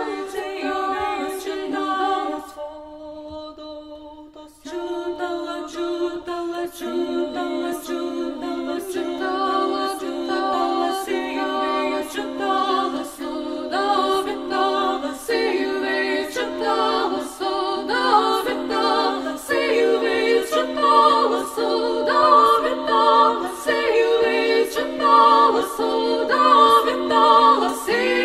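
Unaccompanied choir singing in sustained multi-part harmony. About two and a half seconds in the voices thin to a single low held note, and the full choir comes back in about two seconds later. A faint click sounds roughly every half second.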